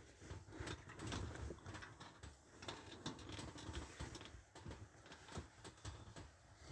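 Faint rustling and scratching handling noise of a phone being moved about, with a fluffy blanket brushing over it and small irregular clicks.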